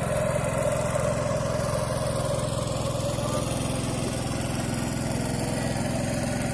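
A small engine running steadily at an even pitch and level.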